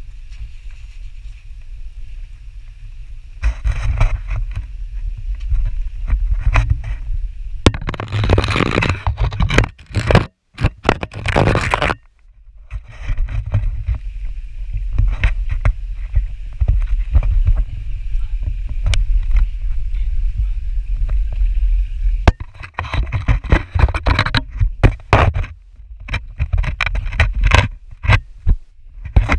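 Handling noise on a pole-mounted action camera's microphone as a hiker scrambles over rock: irregular knocks, clicks and scraping of the pole and hands against the boulders over a low rumble, with longer bursts of rubbing twice.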